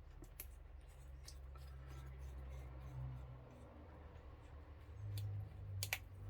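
Light, scattered clicks and taps of small plastic and metal RC-kit parts being handled and fitted by hand, over a low steady hum, with a sharper double click near the end.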